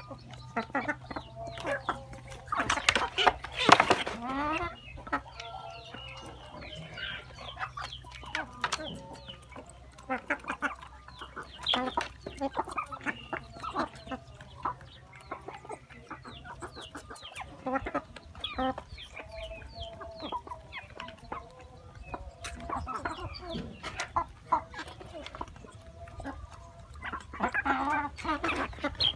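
A flock of hens and roosters clucking while feeding, with sharp pecking taps at the bowls scattered through it. One louder call stands out about three seconds in.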